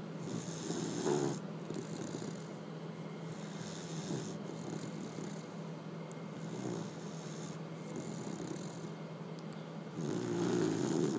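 A sleeping pet snoring with a human-like snore: louder snoring breaths about a second in and again near the end, and softer ones in between.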